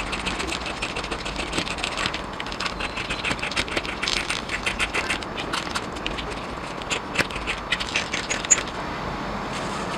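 A quick, uneven run of small clicks and scrapes, like hard small objects being handled, over a steady low background hum. The clicks stop about nine seconds in.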